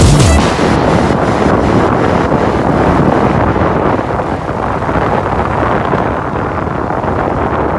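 Wind buffeting the microphone: a steady, loud rushing noise.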